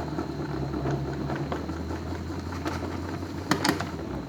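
Electric screwdriver spinning the shaft of a homemade permanent-magnet generator built with microwave-oven magnets, a steady motor hum that drops in pitch about one and a half seconds in. A few sharp clicks come near the end, and the spinning stops just before the end.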